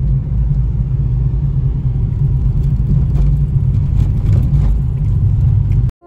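Steady low rumble of a Suzuki car driving, heard inside the cabin: engine and road noise. It cuts off suddenly near the end.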